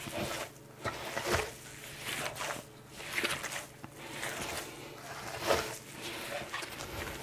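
Hands kneading and squeezing ground elk sausage meat in a stainless steel bowl, making irregular squishing strokes, the loudest about five and a half seconds in. The mix is being worked until the meat proteins turn sticky.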